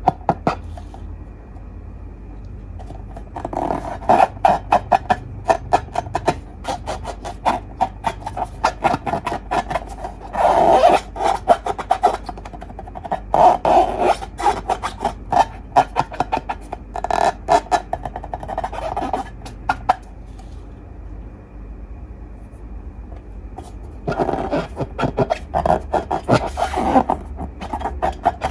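Glossy slime being squeezed and stretched by hand, giving bursts of rapid sticky clicks and pops with quieter pauses between.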